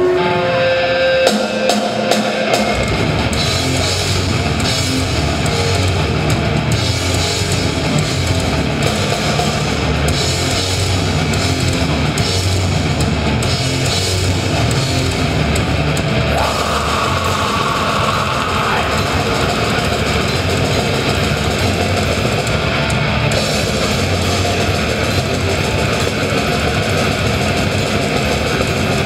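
Black metal band playing live: ringing electric guitar for about the first two seconds, then drum kit and distorted guitars come in together and play on at full band.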